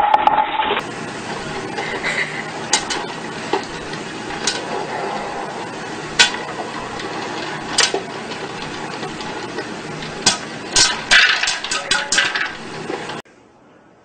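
Popcorn popping in an electric popcorn popper under its clear plastic dome: a steady sizzling hiss with sharp pops, a few at a time at first, then a quick cluster near the end, before the sound cuts off suddenly.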